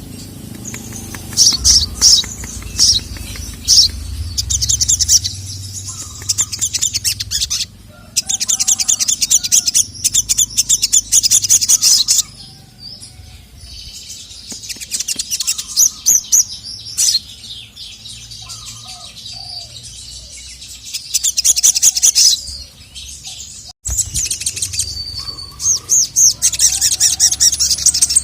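Sogon (sogok ontong) sunbird singing: fast, high-pitched twittering in repeated bursts with short pauses between them. It is the kind of call played to provoke a male sogon into singing back.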